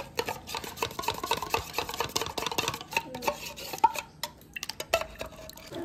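A spoon stirring and scraping in a container, with a rapid, uneven run of small clinks and scrapes.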